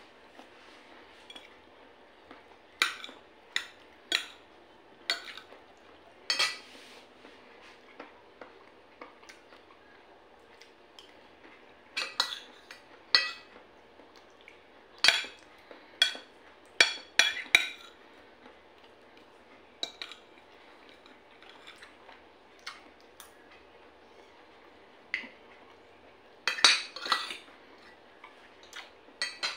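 Fork and spoon clinking and scraping against a plate and bowl during a meal: irregular sharp clicks, some in quick clusters, with short pauses between them.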